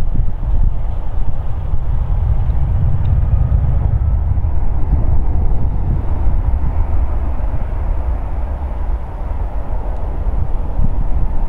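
Boeing 757-200 with Rolls-Royce RB211-535E4 engines slowing on its landing rollout: a loud, steady low rumble.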